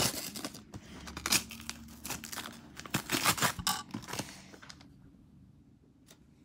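Christmas wrapping paper being ripped and crinkled by hand as a gift is unwrapped: irregular tearing and rustling that dies away near the end.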